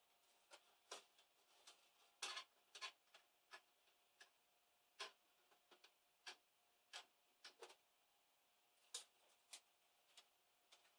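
Faint, irregular light clicks and taps as hands press and shift a thin sheet-metal laptop keyboard plate on a wooden bench, with a small cluster about two seconds in.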